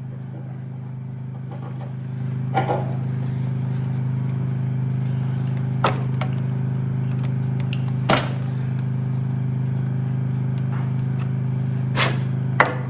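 A power tool's motor running steadily on the old engine's bolts, getting louder about two seconds in, with several sharp metallic knocks over the steady sound.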